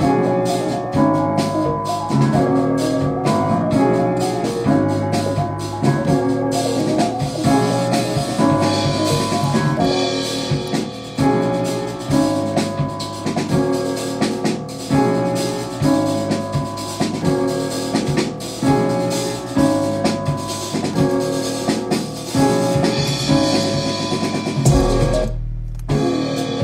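A beat in progress playing back from a music production program: a looping melody over drums and a deep bass. Near the end everything but a low bass note drops out for about a second before the beat comes back.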